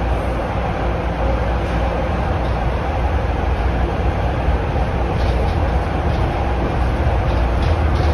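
Toronto Rocket subway train running at speed through a tunnel, heard from inside the car: a steady, loud, deep rumble of wheels on rail and car body noise, with a few faint high clicks in the second half.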